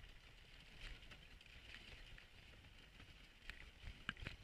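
Faint sound of a dog sled gliding over snow behind a running husky team: a soft steady hiss with a few light clicks and taps near the end.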